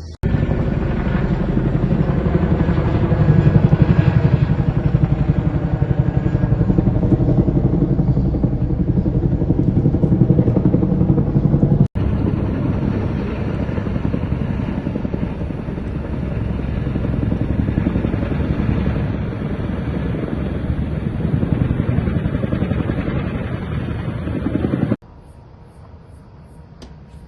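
Loud, steady running of a heavy engine or rotor, with a fast even pulse. It cuts out for an instant about twelve seconds in and drops to a much quieter hum near the end.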